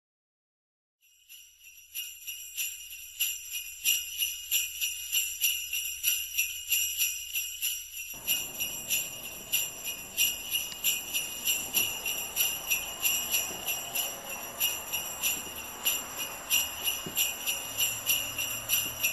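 Jingle bells shaken in a steady rhythm, about two to three shakes a second, starting about a second in. A faint room noise joins beneath them from about eight seconds in.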